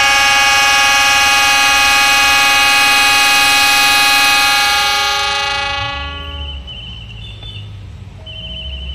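Locomotive air horn sounding one long, loud chord that fades out about five to six seconds in. After it, a faint fluttering high tone and a low rumble remain.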